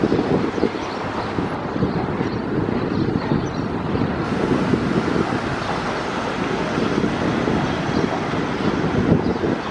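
Boeing 737-800's CFM56-7B jet engines giving a steady rumble as the airliner rolls along the runway after landing, with wind buffeting the microphone.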